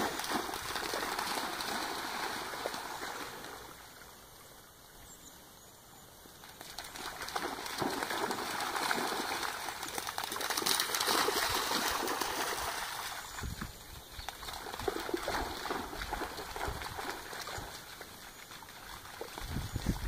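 Dogs running and splashing through shallow floodwater, a noisy wash of splashes that swells and fades, dropping off for a couple of seconds about four seconds in before building again.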